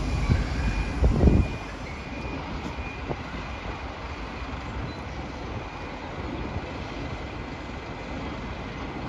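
Bus engines running with traffic around them, and a high reversing alarm beeping about twice a second for the first few seconds. A louder low rumble swells and fades about a second in.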